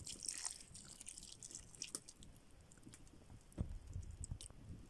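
Faint scattered crackling and ticking as a thin stream of golden liquid is poured onto grated coconut and chopped dry fruit in a steel pot. A soft knock comes about three and a half seconds in.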